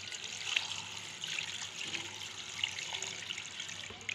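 Water poured in a steady stream into a pot of raw beef pieces and spices, splashing and filling as the stock for beef yakhni is started. It stops near the end.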